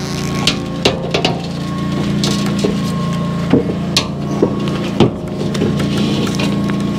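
A 56-inch steel circular sawmill blade being set down in a wooden crate: a handful of sharp knocks and wooden thumps, spread over the first five seconds, over a steady low hum.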